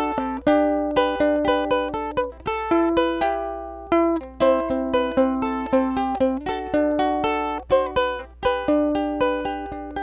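Background music: a light, upbeat tune of plucked string notes, several a second, each ringing briefly and fading.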